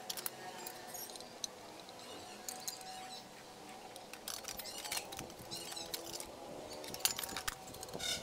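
Light metallic clinks and rattles of a rice cooker's sheet-metal parts being handled, with a louder cluster of clinks near the end.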